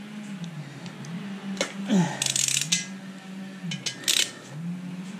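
Ratchet wrench with a 10 mm 12-point socket clicking in short runs on the oil squirter bolts of a VQ37VHR engine block, with small metal clinks, over a low wavering hum.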